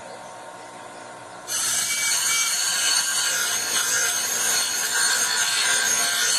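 Bench grinder spinning with a steady hum, then about a second and a half in a small steel gusset is pressed against the wheel and it grinds loudly and steadily, trimming the piece down to size.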